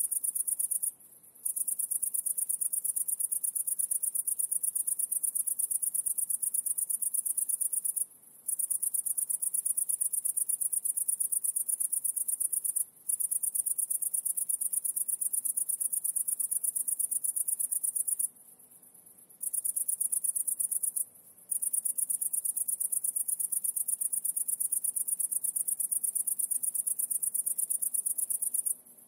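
High-pitched insect trill made of rapid pulses, breaking off abruptly for short pauses several times.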